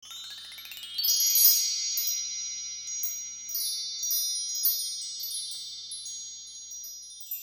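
Chimes ringing: a quick rising run of bell-like notes, a strong strike about a second in and a few lighter strikes after it, the tones sustaining and slowly dying away.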